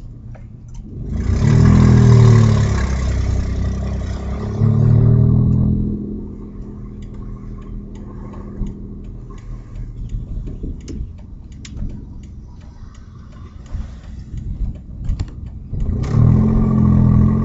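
Audi A4 2.8 12-valve V6 revving three times and dropping back to idle in between, with scattered sharp clicks during the idle. The exhaust is leaking wide open on one bank just after the flex pipe and before the catalytic converter, the leak that gives the 'tractor sound' when accelerating.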